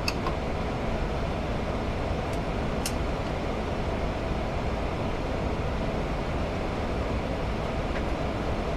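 Steady rushing flight-deck noise of a Boeing 787-9 in its climb just after flap retraction, with two faint clicks about two and a half to three seconds in.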